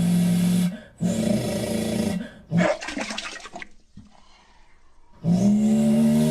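A man imitating a Mazda 787B four-rotor race car engine with his mouth. Steady buzzing vocal drones break off just before one second and come back. Around three seconds there is a hissing, sputtering burst, then a short near-quiet pause, and another drone starts near the end.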